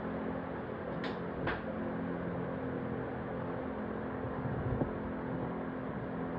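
Steady low machine hum with two short clicks about a second in and a few soft knocks near the end.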